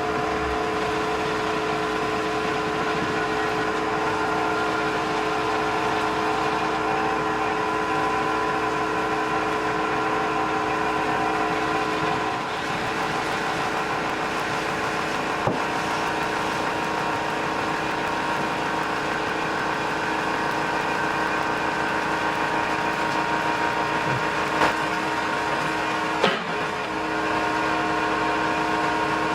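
A machine running steadily with a constant hum made of several fixed pitches, with a short dip about twelve seconds in and a few light knocks; its pitch pattern shifts slightly after a knock near the end.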